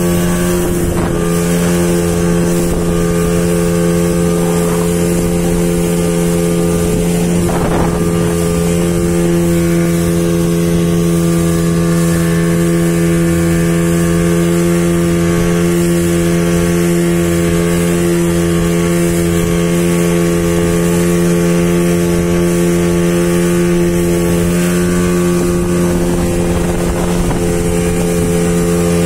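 Speedboat engine running at a steady, unchanging pitch while the boat is under way, heard from on board.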